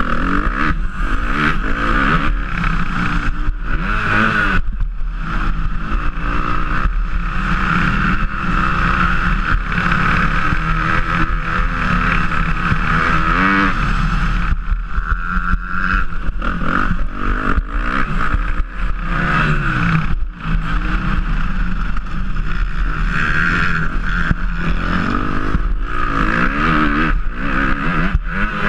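Motocross bike engine under race load, heard from a camera on the bike, revving up and down repeatedly as the rider accelerates and backs off through the corners and straights.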